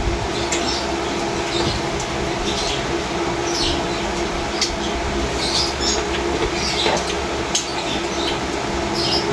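Steady rushing background noise with a constant low hum, and short high chirps or squeaks every second or so.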